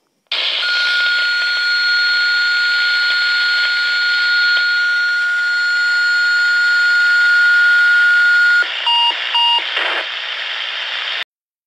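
Fire dispatch alert tone over a radio: a steady high tone held for about eight seconds over radio hiss, then two short beeps, before the transmission cuts off abruptly.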